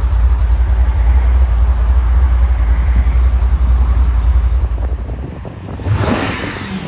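A vehicle's low, steady engine rumble that drops away about five seconds in, followed by a short rush of noise near the end.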